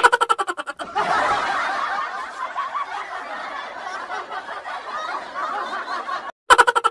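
Laughter: a quick, pulsing snicker, then several seconds of many voices laughing over one another, which cuts off abruptly, and another short snicker near the end.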